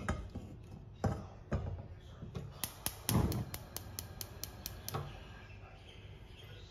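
Gas stove burner being lit under a saucepan: a few knocks as the pan is set on the grate, then the piezo igniter clicking rapidly, about a dozen clicks at roughly five a second, with a brief rush as the gas catches.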